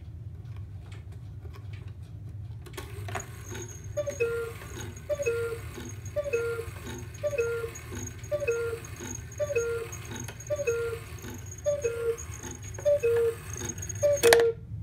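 1850s antique cuckoo clock calling: after a click, about ten two-note cuckoo calls follow, each a higher note falling to a lower one, roughly one a second. The cuckoo mechanism is working properly after its bird-lift wire was adjusted.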